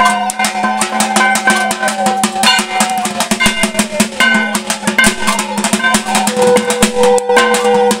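Music with fast, dense drumming, a steady low drone and a wavering melody line above it.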